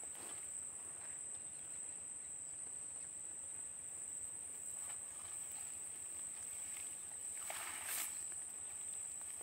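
Steady high-pitched drone of insects, with soft rustling of a cast net being hauled in by hand; near the end the wet net comes out of the water onto the grassy bank with a brief louder swish.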